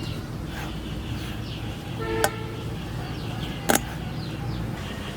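Outdoor background with a steady low rumble and faint bird chirps. About two seconds in comes a brief horn-like toot, and just before four seconds a single sharp knock, the loudest sound.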